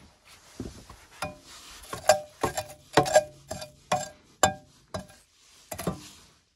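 A metal ash scoop clanking and scraping against the inside of a rusty iron stove while the firebox's ash is cleared: about a dozen sharp, irregular metallic clanks, several with a brief ring.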